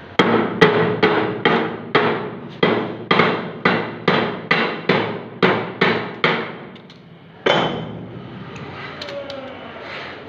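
Quick repeated hammer blows on the front ring of a cast-iron meat mincer, about sixteen over six seconds, then one more after a short pause. The ring is being knocked loose because it is jammed by material packed inside an unwashed machine.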